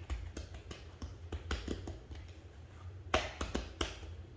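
Hands patting and pressing biscuit dough flat on a pastry mat: a string of soft, irregular taps, with a louder knock a little after three seconds in.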